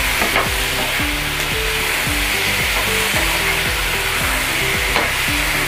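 Onions, capsicum and chicken tikka pieces sizzling steadily in hot oil in a frying pan, with a couple of light clicks from the utensil.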